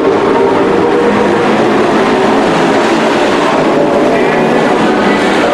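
Dirt-track race trucks going round the oval, several engines running together in a loud, steady drone.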